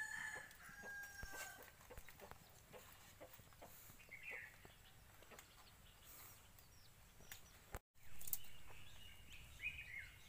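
Chickens in the yard: a rooster's crow, held for about two seconds at the start, and a few short hen clucks later on, over scattered sharp clicks like the crackle of a wood fire in a clay stove. About three-quarters in the sound drops out for a moment, then comes back with a louder rush of noise.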